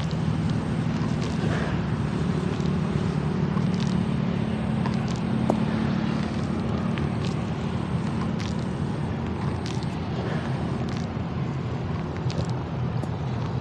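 Water buffalo chewing, its mouth making irregular sharp smacking clicks every second or two, over a steady low hum.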